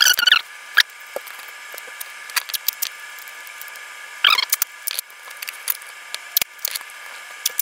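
Fast-forwarded sound of brown packing tape being pulled, torn and pressed down: many quick sharp crackles and ticks over a faint steady high tone. Two short squeaky bursts of sped-up voice come at the start and about four seconds in.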